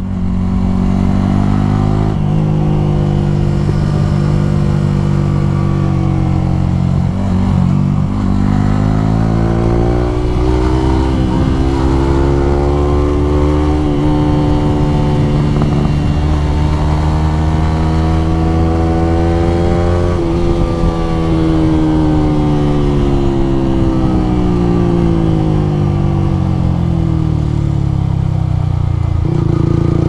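A motor vehicle's engine running steadily while on the move, its pitch slowly rising and falling as it speeds up and slows down.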